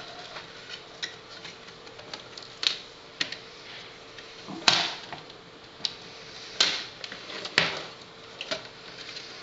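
Irregular clicks and knocks of a computer optical disc drive's metal casing and plastic tray being handled and turned over on a wooden table, the loudest about halfway through, over a faint steady hum.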